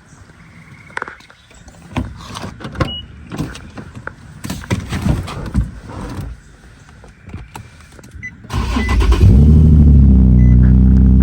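A series of clicks and knocks, then about eight seconds in the 2012 Infiniti G37's 3.7-litre V6 cranks, fires and settles into a steady idle. It starts right up once the blown engine-control-module fuses have been replaced.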